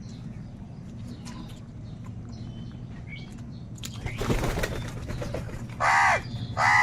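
Crow giving a loud, harsh caw near the end, with a second caw just beginning as the first dies away. Before it, a short rustling noise about four seconds in, over a steady low hum and faint chirps of small birds.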